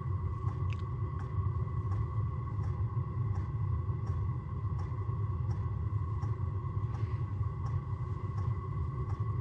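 Steady low rumble inside an ice-fishing tent, with a faint steady high whine and light ticks about every 0.7 seconds.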